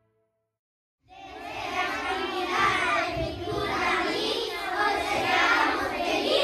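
A crowd of young children's voices, many at once, starting suddenly about a second in after a brief silence.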